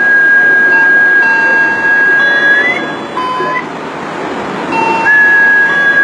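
Electronic tones played for sound-wave healing: a loud, steady high tone over a hiss, which glides up and cuts out about halfway, with shorter, lower steady tones filling the gap, then returns near the end.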